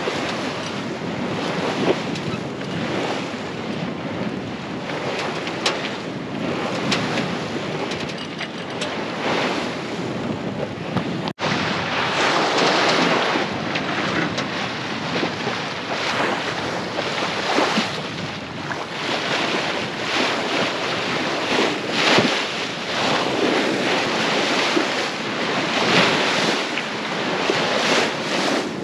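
Sailboat under way in open-ocean swells: water rushing and splashing along the hull, with wind buffeting the microphone. The rush swells and eases every few seconds with the waves, and cuts out for an instant about eleven seconds in.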